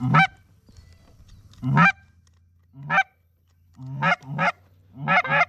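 Goose honking close by: seven short, loud two-note honks, each breaking from a low note up to a high one, coming at uneven intervals with a quick pair near the end.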